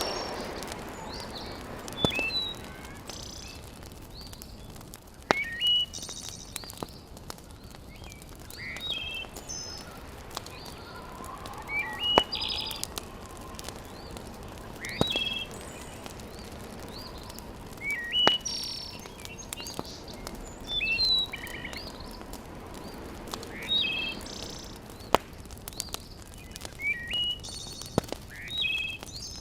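Birds chirping outdoors in short phrases every few seconds, over the sharp pops and crackle of a wood fire burning in a fireplace.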